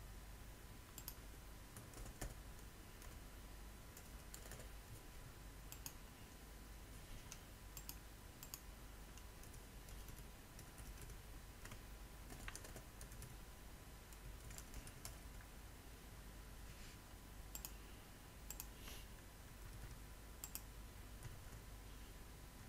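Faint computer keyboard typing and mouse clicks, coming in irregular bursts of sharp clicks over a faint steady background hum.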